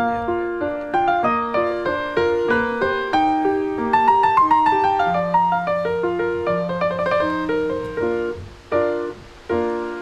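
Solo piano background music: a flowing melody of struck notes over chords, which thins out near the end into two separate chords.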